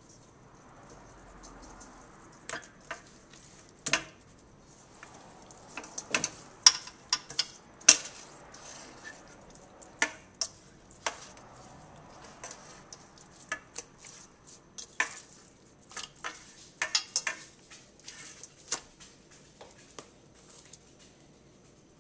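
Hand mixing seasoned round steaks in a stainless steel bowl: irregular sharp clicks and knocks against the metal bowl, loudest a little past a quarter of the way in.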